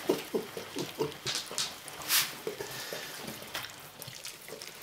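Young puppies lapping and slurping milk from a shallow dish, with short puppy whimpers in the first second or so.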